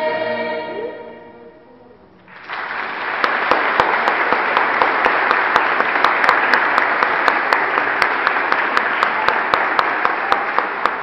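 A children's choir's last held chord fades out, and about two seconds in the audience breaks into applause, steady hand-clapping with sharp individual claps standing out, which carries on to the end.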